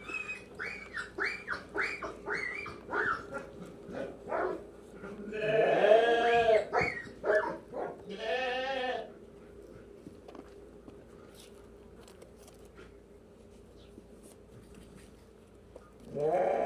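Lambs bleating: a quick string of short, high calls, then several louder, longer bleats with a quavering pitch, then a lull and one more bleat near the end.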